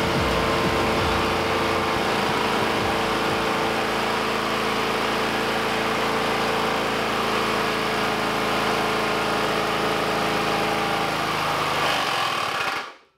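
Push lawn mower's small single-cylinder engine running steadily with no oil in its crankcase, then stopping abruptly near the end as it seizes from lack of lubrication.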